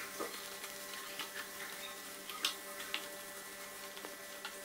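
Wooden spatula stirring thick onion-and-potato stuffing in a nonstick frying pan: faint scrapes and soft knocks, with a couple of sharper taps about halfway through, over a steady low electrical hum.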